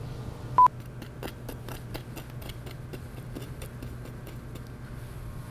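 A short, loud electronic beep about half a second in, then a run of light irregular clicks and scrapes from a metal spoon digging into baked apple crisp with its crunchy oat topping, over a faint steady hum.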